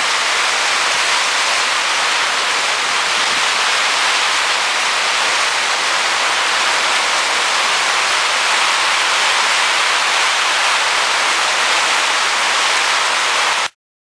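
Heavy rain pouring down and running off a roof edge in streams, a steady, even hiss that cuts off abruptly near the end.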